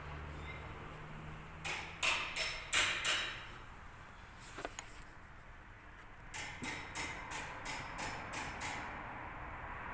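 Hammer tapping on metal in two runs: about five strikes, then after a pause of a few seconds about nine quicker strikes, each with a short ring.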